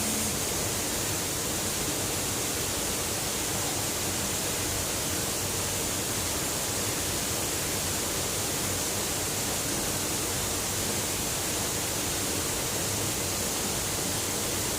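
Waterfall rushing: a steady, unchanging wash of falling water.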